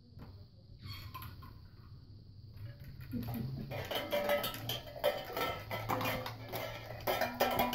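Metal cans and a bamboo wind chime hanging on a puppy's play cube, knocked together as the puppy pushes in among them: a few faint ticks, then from about three and a half seconds in a busy clatter of knocks, clinks and ringing tones.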